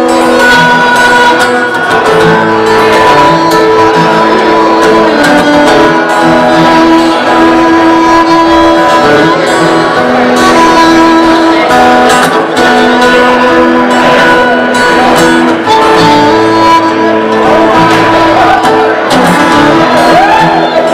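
Fiddle and guitar playing an instrumental passage of a folk song live, the fiddle holding long bowed notes over the guitar accompaniment.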